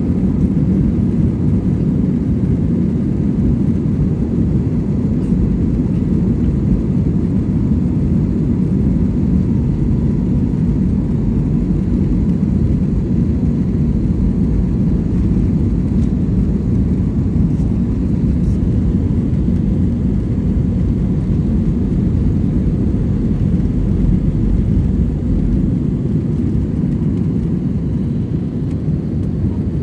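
Airbus A320 jet engines at takeoff power heard from inside the passenger cabin during the takeoff run: a loud, steady low rumble of engine and runway noise.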